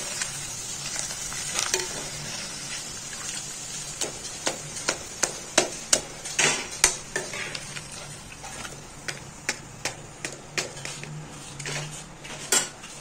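Appalam (papadums) frying in hot oil in a kadai: a steady sizzling hiss, with many short clicks and scrapes of a metal spoon against the pan as the papadums are turned and lifted out.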